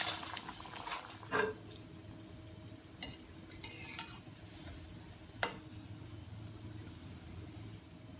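Bread roll deep-frying in hot oil in a stainless steel kadai, a steady sizzle, with a few sharp clinks of a metal slotted spoon against the pan as the roll is turned.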